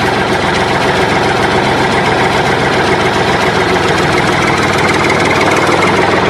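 Small motor of a homemade toy wheel loader running steadily as it drives over dirt: a loud, even, fast-chattering mechanical buzz.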